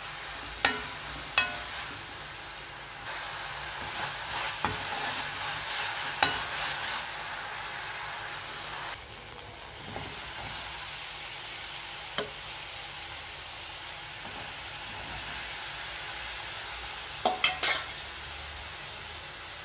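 Shallots, tomato, curry leaves and dried red chillies sizzling steadily in oil in a metal pan while a metal spoon stirs them. Sharp clinks of the spoon against the pan come every few seconds, with a quick run of three clanks near the end.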